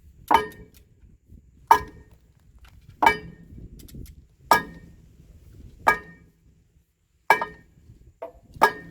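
Hammer blows on a metal part, a steady one about every second and a half, each with a short metallic ring; a lighter tap comes just before the last blow.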